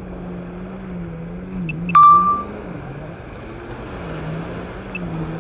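A low engine hum that wavers gently in pitch throughout. About two seconds in there is a short electronic ding: a click followed by a bright ringing tone lasting about half a second.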